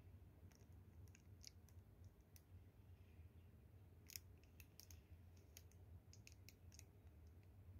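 Near silence: a faint low hum with scattered light clicks, the loudest about four seconds in.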